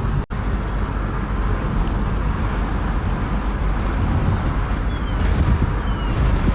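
Steady road and engine noise of a moving car, cutting out for an instant a fraction of a second in.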